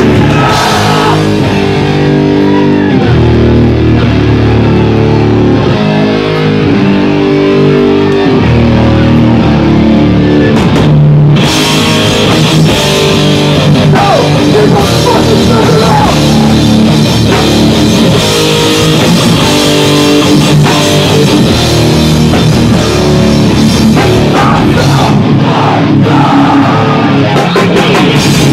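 Live hardcore band playing loudly: distorted electric guitar, bass guitar and drum kit.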